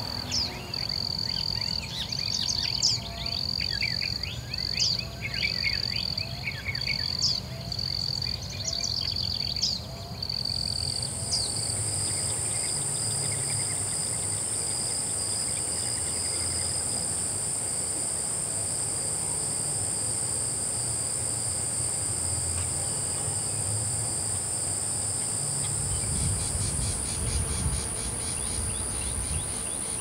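Prairie insects trilling, with birds calling quickly and repeatedly for the first ten seconds. About ten seconds in, a high, steady insect buzz starts and holds to the end.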